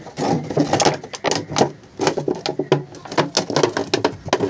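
A clear plastic jar knocking and clicking against a brick wall and floor as it is handled, with people talking in the background.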